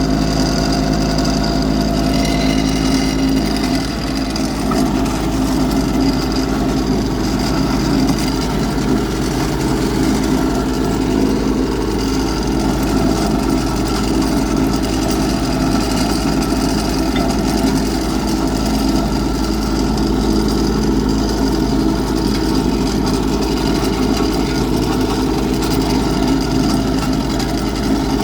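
Engine of a ground-compaction roller running steadily. About four seconds in, its even hum turns rougher and more uneven, and it keeps running that way.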